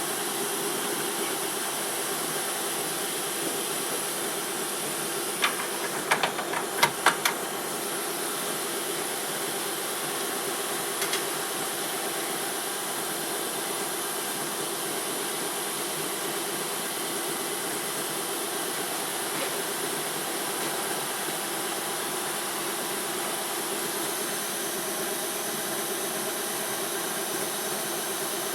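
Emco F1 CNC milling machine running with a steady hiss, with a quick cluster of sharp clicks and knocks about six to seven seconds in.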